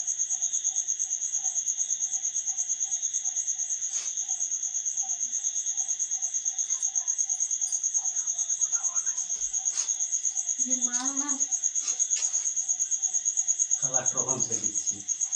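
Crickets trilling steadily at night, a fast, high, pulsing trill that is the loudest sound throughout. A second, lower chirp repeats about three times a second beneath it. Brief voices come in about ten seconds in and again near the end.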